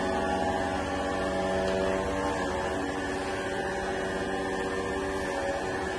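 Kent surface grinder running under power, a steady machine hum with several held tones whose pitch shifts a little now and then.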